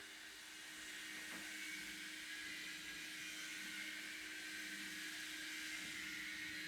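A faint, steady mechanical hum under a hiss, with a second, lower drone that comes and goes. This is the unidentified machine noise from the flat above, heard through the ceiling on a smartphone recorder.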